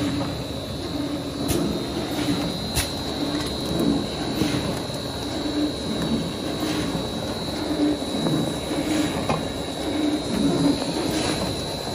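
Shaftless paper tube core cutting machine running, spinning a paper core on its rollers while its double blades cut it into rings. A steady high whine runs under a low, regularly repeating pulse, with a few sharp clicks.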